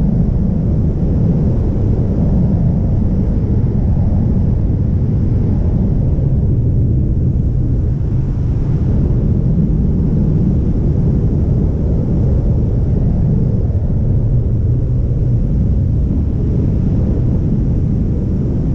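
Loud, steady low rush of wind buffeting the camera microphone of a wingsuit pilot in flight.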